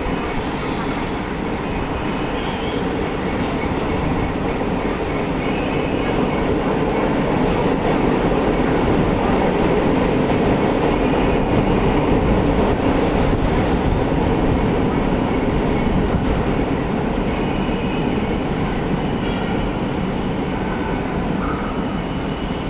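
Electric suburban EMU train running on its line, heard from inside the carriage: a steady rumble of wheels and coach, swelling a little in the middle, with faint high wheel squeals now and then.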